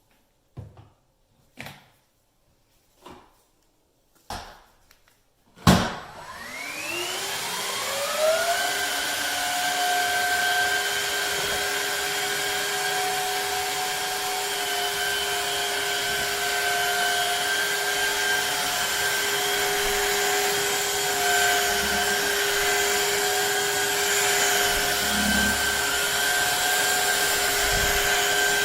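A few separate knocks, then the Shark HydroVac MessMaster wet-dry vacuum mop switches on with a click about six seconds in. Its motor spins up with a rising whine over a couple of seconds and then runs steadily with a high whine.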